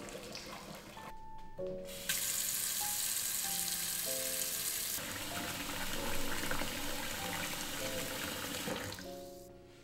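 Kitchen tap running a steady stream of water into an enamelled pot, filling it. The water starts suddenly about two seconds in and stops near the end.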